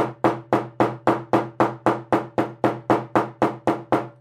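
Steel-headed shoemaker's hammer tapping a glued leather edge on a workbench: even, rapid blows, about four a second, each a sharp knock with a short low ring, stopping right at the end. The hammering flattens the folded strap over a shoe's back seam.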